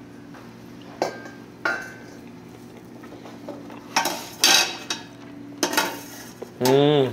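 Eating at a table: a handful of short clicks and taps from chopsticks and dishware with chewing between them, then a man's short pleased 'mmm' near the end.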